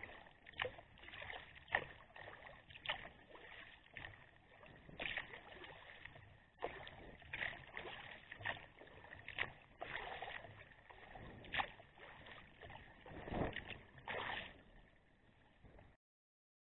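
Kayak paddle strokes: the blades dip and splash lightly in shallow water about once a second, with drips in between. The sound cuts off suddenly near the end.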